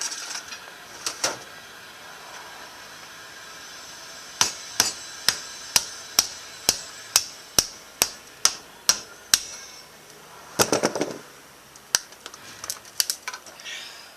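A hammer striking a screwdriver into the plastic case of a 12 V lead-acid battery to break it open: about a dozen steady blows, roughly two a second, followed by a short clatter and a few lighter knocks.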